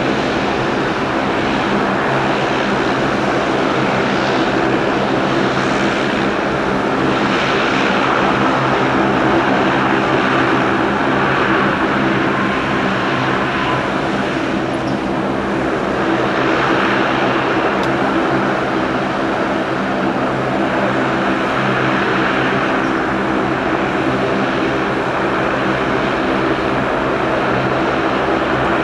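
Saab 340 twin-turboprop airliner running with its engines and propellers at a steady pitch, a constant propeller hum over a rushing engine noise.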